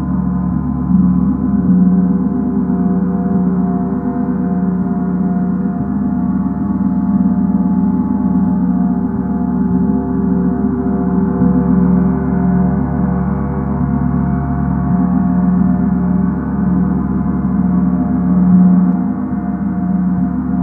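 Gong played continuously, a sustained, dense wash of overlapping steady tones with a strong low note, swelling gently now and then rather than sounding as separate strikes.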